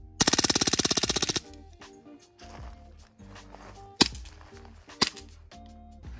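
Two sharp handgun shots about a second apart, over background music. A loud, fast rattling burst lasts about a second near the start.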